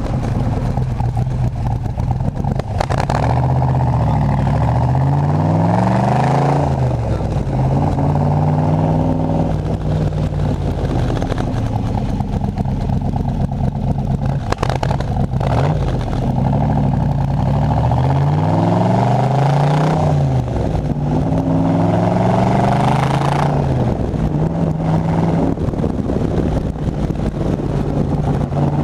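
Car engine running under way, its pitch climbing and falling several times as it accelerates and eases off; the uploader asks whether it is misfiring.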